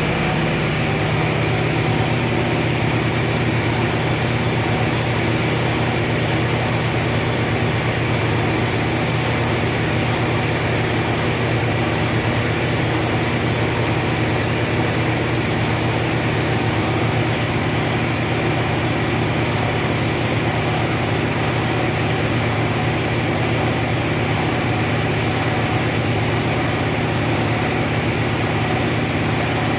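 Heavy-drum carpet wringing machine (carpet spin-dryer) running steadily at speed under its electric motor drive: a constant low hum with a steady higher whine over it.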